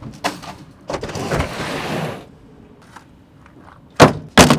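Packs of pegboard panels and boxes being loaded into a pickup truck's ribbed plastic bed liner: a scraping slide about a second in, then two sharp thumps near the end as a box is set down in the bed.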